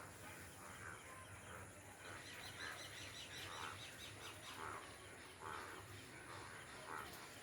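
Faint chorus of frogs croaking after rain, their mating calls: short croaks about once a second, with a fast, high pulsing trill about two to four seconds in.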